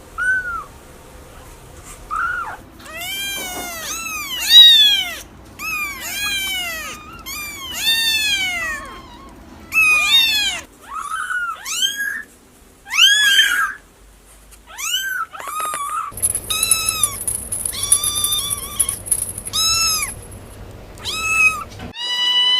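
Kittens meowing over and over: short, high-pitched meows that rise and fall, sometimes several a second, with brief pauses between runs.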